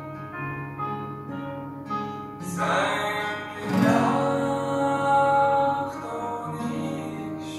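Capoed steel-string acoustic guitar playing: single picked notes ring over one another, then two full strummed chords about two and a half and four seconds in, followed by more picked notes.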